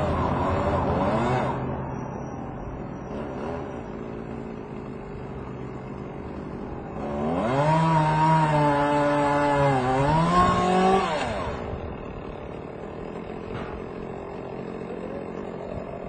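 Chainsaw engine revving in bursts: a short rev at the start, then a louder, longer one about seven seconds in whose pitch sags in the middle and climbs again before it drops back.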